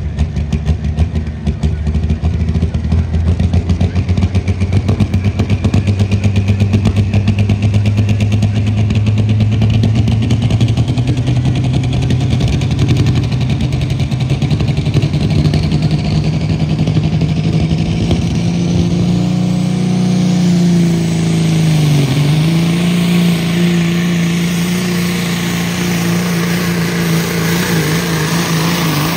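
Diesel semi-truck engine at full load pulling a weight-transfer sled, loud and continuous. Its pitch climbs steadily for about twenty seconds, dips sharply and recovers, then holds steady, with a high whine climbing alongside.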